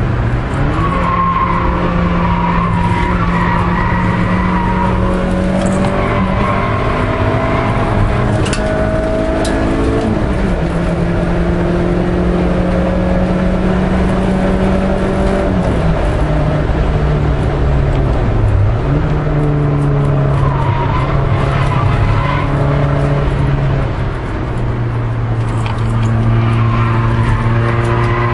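Peugeot 306 S16's 2.0-litre four-cylinder 16-valve engine heard from inside the cabin, running hard on a circuit lap. Its note steps down at gear changes about four times. Tyres squeal through corners at the start and again near the end.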